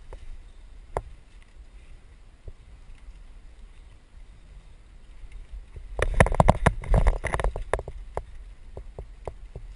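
Mountain bike clattering and rattling as it rides over a bumpy dirt trail, over a low rumble of wind and tyres. About six seconds in comes a dense burst of rattling lasting about two seconds, followed by scattered sharp ticks.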